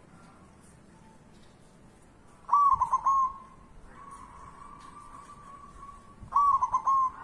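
A bird gives two loud, short, whistled calls about four seconds apart, each broken into a few quick pulses, with a fainter steady whistling tone between them.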